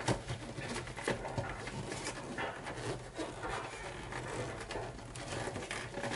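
Gloved hands pushing a sheathed electrical cable through a Romex clamp connector into a breaker panel: faint, irregular rubbing and rustling of the cable against the connector and the panel, with a few small clicks.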